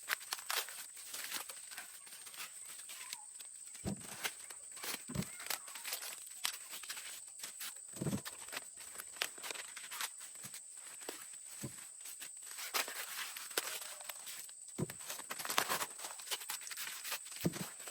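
Dry crop leaves and stalks rustling and crackling irregularly, with about six soft thuds spread through, over a steady high-pitched tone.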